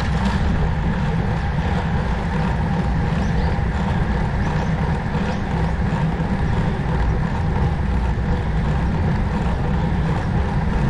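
Steady wind rush over a rider's microphone while riding at speed, a heavy low rumble with an even hiss above it.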